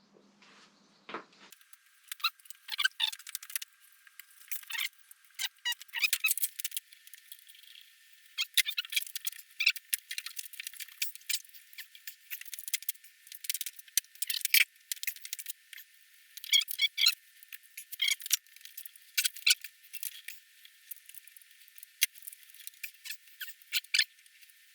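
Harley Evolution handlebar-riser rubber bushings squeaking and clicking as they are pried and worked out against the metal. The squeaks are thin, high and irregular, starting about a second and a half in.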